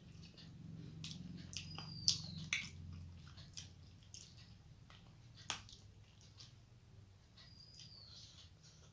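Close-up chewing of a person eating rice and curry by hand: soft wet chewing with sharp lip-smack and mouth clicks. Twice, a short high whistle falls in pitch, about two seconds in and again near the end.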